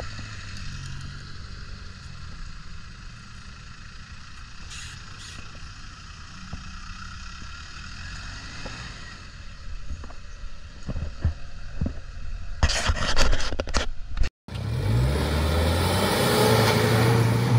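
Off-road jeep engines running at low revs over a rough dirt track, with scattered knocks and scrapes about ten to fourteen seconds in. The sound cuts out abruptly for a moment, then comes back as a louder, steadier engine sound.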